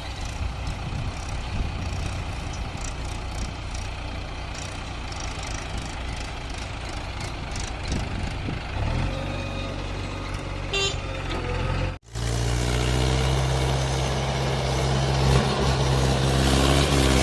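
Heavy diesel engine of earth-moving machinery running steadily. After an abrupt break about twelve seconds in, it comes back louder, its note climbing slightly.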